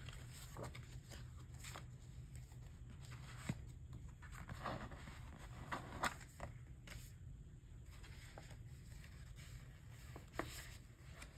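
Faint rustling and light clicks of album packaging and photocards being handled, a handful of separate taps spread through, over a low steady hum.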